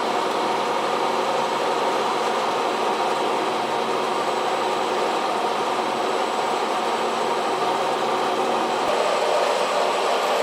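A steady mechanical hum with a constant drone, like a running machine or motor.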